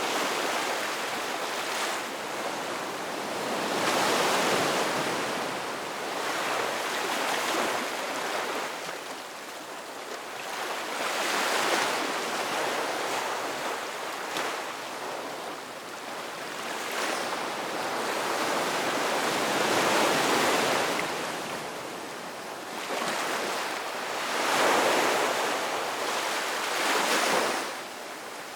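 Ocean surf: waves breaking on a beach, a rushing noise that swells and fades in slow surges every several seconds.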